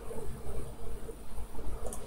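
Low steady background rumble and faint hiss of room tone, with one faint click near the end.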